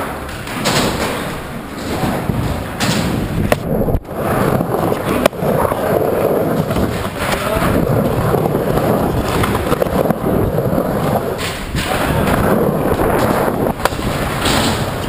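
Skateboard wheels rolling on a mini ramp, a steady rumble that swells and fades as the rider pumps the transitions. It is broken by a couple of sharp clacks of the board about four and five seconds in.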